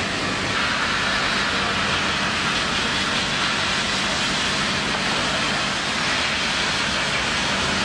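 Loud, steady rushing noise with no distinct events, spread evenly from low to high pitch, that cuts off abruptly near the end.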